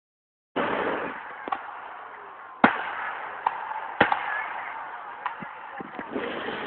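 Fireworks going off: a string of sharp bangs at irregular intervals, two louder than the rest, over a steady rushing background.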